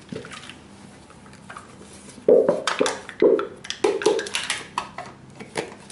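Whipping cream glugging out of a tipped carton into a plastic mixing bowl: a run of about five loud gulps a little over two seconds in, with light clicks and knocks from handling the carton and bowl around them.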